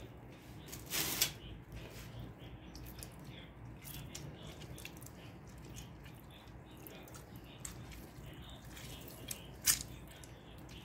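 A lemon squeezed by hand over raw whole chickens: faint squishing and dripping, with a short louder squelch about a second in and a sharp click near the end.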